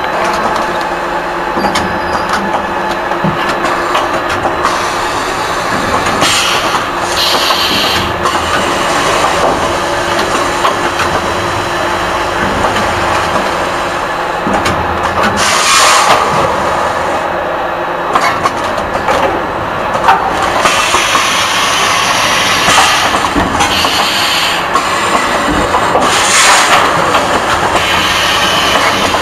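Automatic premade-bag packaging machine for dog and cat food running, a steady mechanical clatter and hum. Several short hisses of air from its pneumatic cylinders come at irregular intervals.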